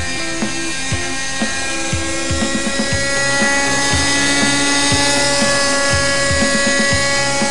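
Raptor .32 RC helicopter's OS .32 nitro glow engine running at high revs with the rotor turning, a steady high-pitched whine. It gets a little louder about three seconds in as the helicopter lifts into a low hover.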